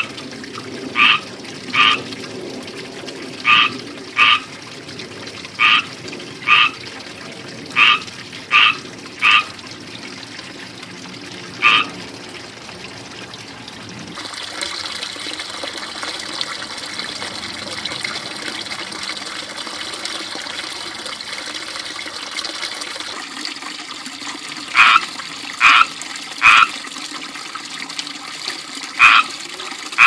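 Frogs calling with short, loud chirps, often two in quick succession, over the steady trickle and splash of a small pond fountain. The calls break off for about twelve seconds in the middle while the splashing grows louder, then start again near the end.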